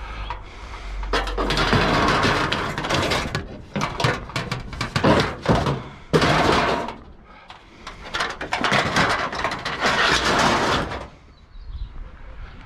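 Scrap being handled and loaded: a run of scraping and rattling noises, each lasting a second or two.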